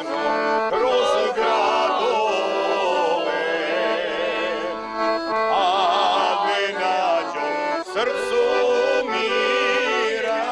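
Background music: a melody of held notes, some wavering with vibrato, over sustained chords, in a folk style.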